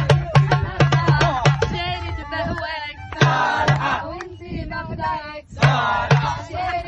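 Background music: a song with a steady, thumping drum beat, sharp percussion clicks and a melodic vocal line, briefly dropping out about five and a half seconds in.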